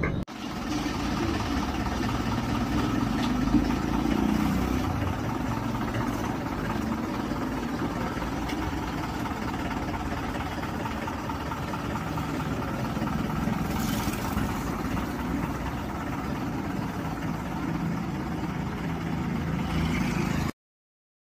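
Mahindra tractor's diesel engine running steadily at low revs.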